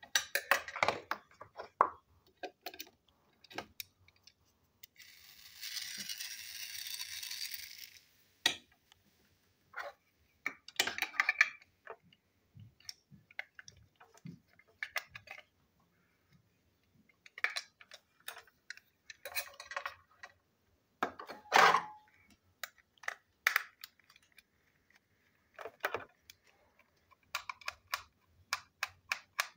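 Scattered clicks, taps and scrapes of a small screwdriver and hard plastic parts as a toy train engine is screwed back together. A steady hiss-like rushing runs for about three seconds starting about five seconds in.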